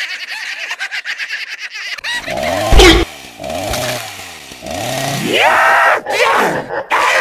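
Cartoon chainsaw sound effect: a chainsaw engine revving, its pitch swinging up and down and climbing sharply about five seconds in. It is preceded by a fast rattle and a loud burst just under three seconds in, the loudest moment.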